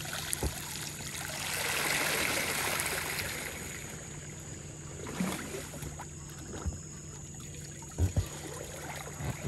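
Water splashing and pouring off an inflatable pool float as it is hauled up out of a swimming pool, swelling over a couple of seconds and then dying down, followed by a few dull thumps of the float on the water near the end.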